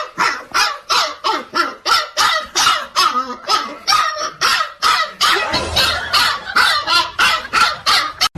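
A dog barking rapidly and steadily, about three short barks a second without a break.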